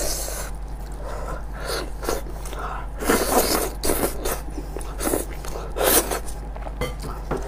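Close-miked eating of braised sheep's head: wet chewing, sucking and tearing as meat is bitten and pulled off the bones, with a few louder bursts about three, four and six seconds in.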